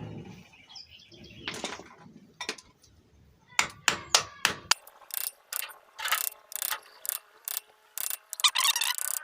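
Sharp clicks and taps of a hand tool working on a motorcycle engine's worn oil pump drive gear to break it out: a few at first, then about two a second from about three and a half seconds in, with a quick run of clicks near the end.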